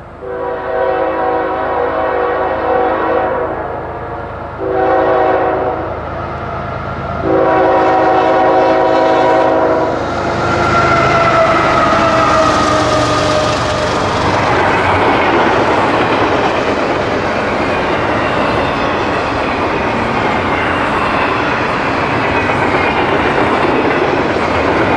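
Diesel freight locomotive's multi-tone horn sounding a long, a short and a long blast as the train approaches. Then, as the locomotives pass, a tone falls in pitch, followed by the steady rumble and wheel clatter of double-stack intermodal cars rolling by.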